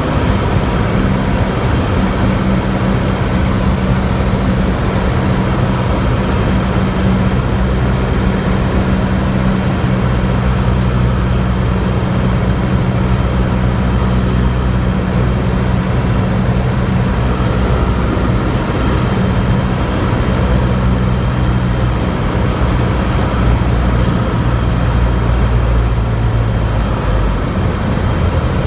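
Engine and propeller of a 1975 Cessna 172M, a four-cylinder Lycoming O-320, droning steadily over a rush of air during a landing. The hum thins about three-quarters of the way through and drops lower near the end.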